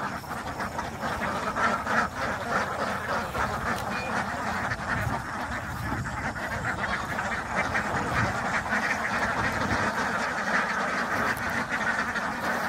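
A large flock of domestic ducks quacking all at once: hundreds of overlapping quacks merge into a dense, continuous chorus.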